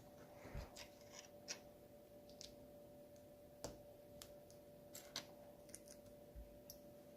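Faint, irregular clicks and taps of small plastic Lego pieces being handled, about a dozen over several seconds, over a faint steady hum.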